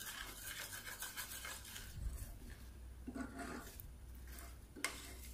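Metal spoon stirring and scraping a thick, reducing milk-and-sugar mixture (palkova) around a stainless steel pan. There is a sharper knock of the spoon against the pan near the end.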